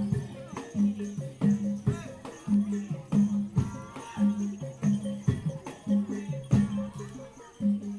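Reog gamelan music playing: low pitched gong-chime notes repeat at an even beat, about every 0.7 seconds, under sharp drum strokes.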